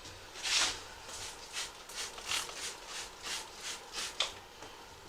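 Trigger spray bottle of soapy water squirted over and over onto an ATV tire's bead, a short hiss about two or three times a second, the first the loudest. The soapy water lubricates the bead so it pops up onto the rim and seals.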